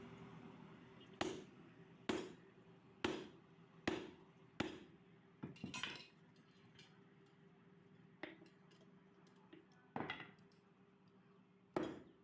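Hammer blows on iron with a short metallic ring: five strikes about a second apart, a quick few together, then slower, spaced blows with pauses between.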